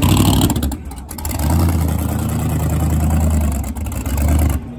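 Supercharged LS V8 in a classic Mini running loud under throttle as the car pulls away. The revs drop off briefly about a second in and again near the end.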